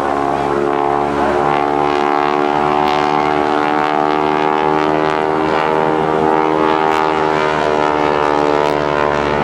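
Boeing Stearman biplane's radial engine and propeller droning steadily overhead, its pitch shifting slightly as the plane moves.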